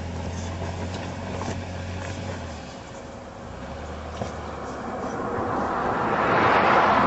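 Off-road vehicle engine running with a steady low hum, which drops off about two and a half seconds in. A rushing noise then builds and grows loud over the last couple of seconds.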